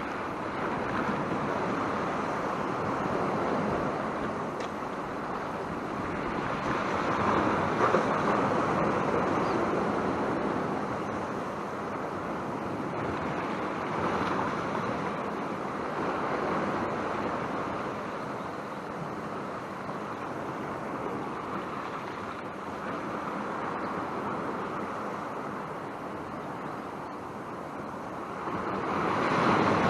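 Sea swell washing against a rocky shore, surging and easing every few seconds, with strong wind on the microphone.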